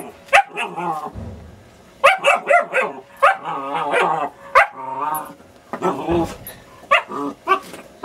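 German Shepherd puppy play-barking over and over: runs of short, sharp, high yaps with longer wavering calls between them.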